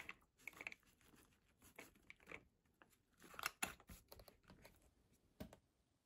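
Faint clatter of mixed nuts dropping into a bear-shaped jar as they are poured from a plastic bag, with the bag crinkling. Then the metal screw lid is put on and turned, with a sharp click about five and a half seconds in.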